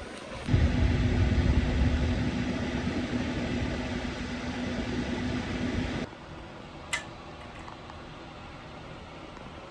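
A small electric motor hums steadily for about five and a half seconds, starting and stopping abruptly, then a single sharp click.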